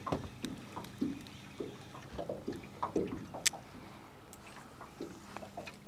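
Small waves lapping and gurgling against the side of a small fishing boat in short irregular slaps, with a few light clicks from a spinning reel being handled.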